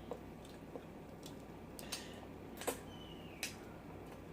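Scattered sharp clicks and small cracks, about six at uneven intervals, the loudest a little before three seconds in: close-miked sounds of eating seafood-boil crab and shrimp by hand.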